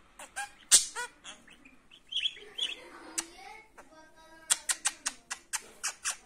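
Budgerigar chattering: sharp single chirps, a warbling run in the middle, then a quick series of short chirps near the end.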